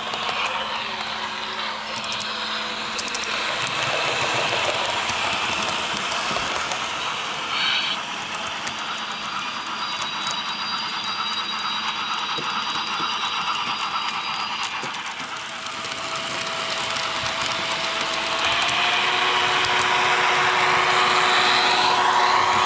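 Sound-equipped model X2800 diesel railcar running, its digital sound decoder playing a diesel engine drone through the model's small speaker. About two-thirds of the way through, the engine note steps up in pitch and gets louder; a brief high sound comes about eight seconds in.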